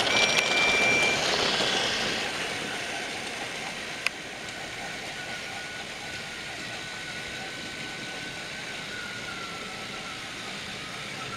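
Motorized TrackMaster toy train running on plastic track: a steady electric motor whine with wheel rattle, fading over the first few seconds as it moves away and then running on steadily. There is a single sharp click about four seconds in.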